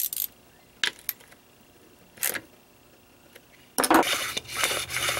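A few sharp separate clicks of metal tools being handled, then a little over a second of clattering and scraping as the aluminium recoil starter housing is gripped and shifted on the workbench near the end.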